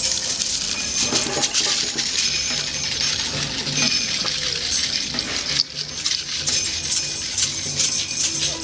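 Continuous metallic jingling and rattling of hand-shaken percussion, like jingles and shakers, keeping time for a dance, with a low steady tone underneath.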